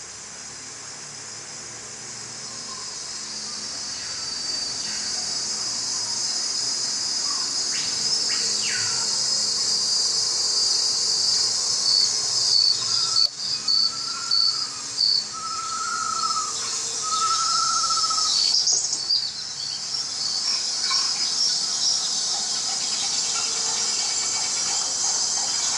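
Rainforest ambience from a film soundtrack, heard through a TV speaker: a dense, steady, high-pitched insect chorus that fades in and grows louder over the first ten seconds or so. About halfway through, three short calls rise and fall in pitch above it.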